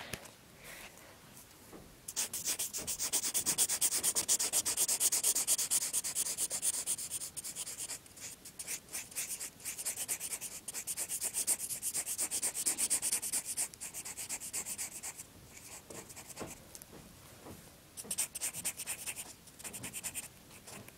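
Red felt-tip pen scribbling on paper in rapid back-and-forth colouring strokes, starting about two seconds in and running steadily, then breaking into shorter bursts near the end.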